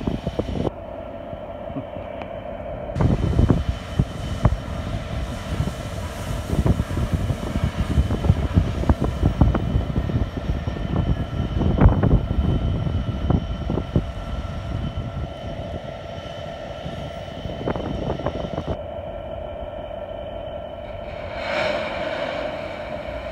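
Class 66 diesel locomotive's two-stroke V12 engine running with a steady drone. Loose clanks and knocks from the hopper wagons come in the middle, and a hiss of air rises near the end.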